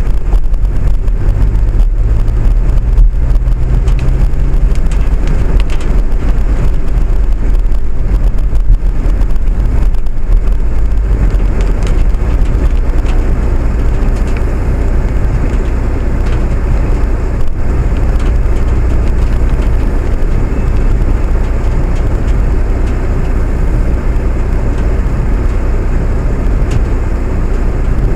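A vehicle running along steadily, heard from on board as a constant low rumble with road or track noise. A low hum fades out about five seconds in.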